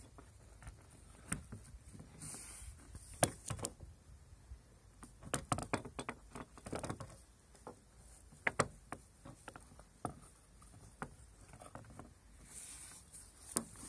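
Scattered light clicks, taps and scrapes of hands working a hooked strap end into the gap at the top of a car door window, the hook knocking on the glass and window frame, thickest about halfway through.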